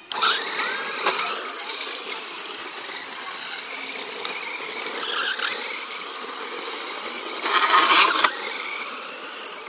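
Electric 4WD RC car's motor whining and gliding up and down in pitch as it is driven hard, with its tyres spinning and scrabbling on loose dirt as it drifts. A louder stretch lasting under a second comes near the end.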